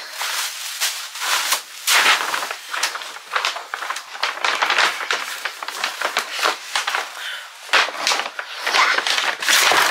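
Gold metallic gift bags, tissue paper and foil gift wrap crinkling and rustling as they are handled and pulled open, loud and irregular.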